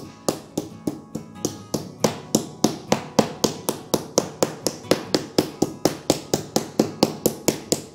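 Wooden meat tenderizer mallet with a metal studded face pounding a raw chicken breast flat on a cutting board, in steady rapid blows about four a second.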